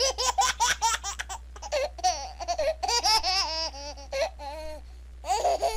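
A person laughing hard in high-pitched runs of quick bursts, breaking into longer rising-and-falling laughs.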